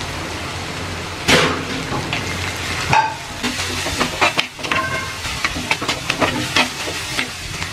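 Onions and crushed garlic frying in oil in a clay pot, a steady sizzle, with a sharp knock about a second in and many short crackles from the middle on as curry leaves are dropped into the hot oil.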